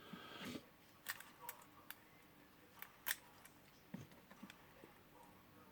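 Light, scattered clicks and taps of small gears and housing parts being handled as a cordless drill's gearbox is put back together.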